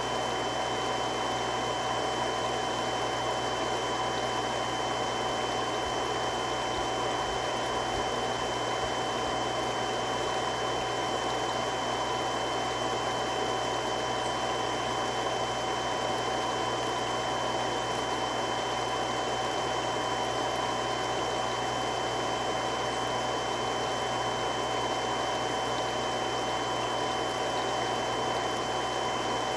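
Three-stage irrigation water pump running steadily: an even rushing noise with a constant motor whine and hum.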